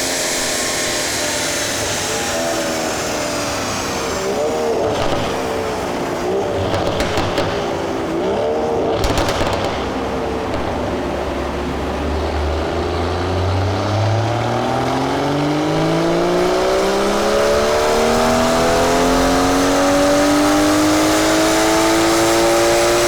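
BMW M140i's turbocharged 3.0-litre straight-six through a Milltek catback exhaust with downpipes and OPF delete: a few short revs with a crackle about nine seconds in, then the revs climb steadily and slowly for about ten seconds under load.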